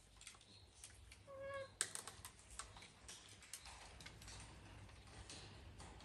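Faint scattered clicks and taps from parrots in an aviary, with one short pitched bird call about a second and a half in.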